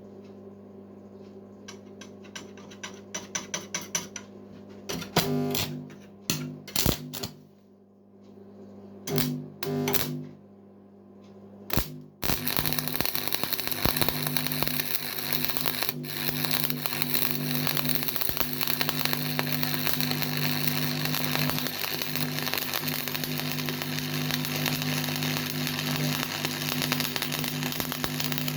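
Stick (arc) welding: the electrode rod is struck and sputters in a few short bursts, then from about twelve seconds in the arc holds and crackles steadily over a low electrical hum from the welder.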